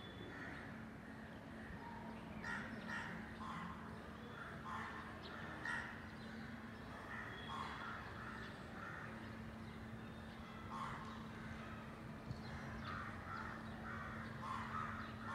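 Crows cawing, many short calls coming again and again, over a steady low hum.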